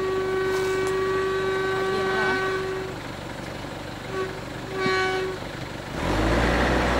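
Vehicle horn sounding a long steady blast, then two short toots. A loud low rumble begins near the end.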